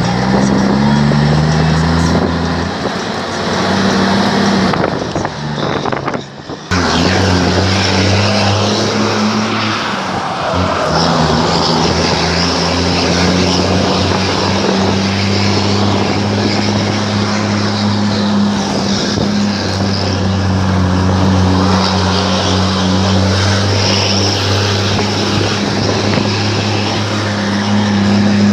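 Truck engine with a straight-through exhaust (no muffler) running loud under way, a deep steady drone. Its pitch steps up over the first few seconds, drops out briefly about six seconds in, then holds steady.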